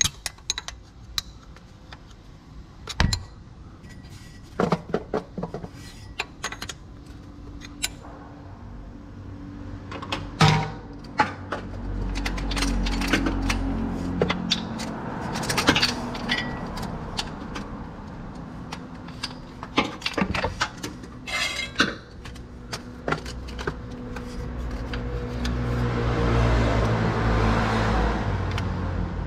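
Scattered metallic clinks and knocks of hand tools and parts being handled while working on a car's starter motor. A low rumble swells about twelve seconds in and again near the end.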